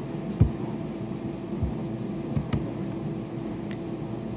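Steady room and microphone hum with a faint steady tone, broken by about five soft clicks and low knocks, the loudest about half a second in, from a computer mouse and desk being handled.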